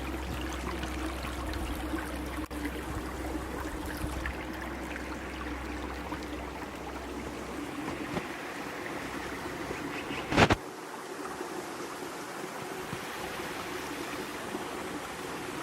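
Steady rush of a stream running over rocks at the top of a waterfall. A single short knock about ten seconds in.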